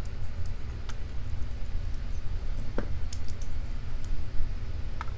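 Light metallic clicks and ticks from handling a disassembled lock cylinder housing and its small brass pins, a few scattered taps with a short cluster in the middle. Under them runs a steady low background rumble.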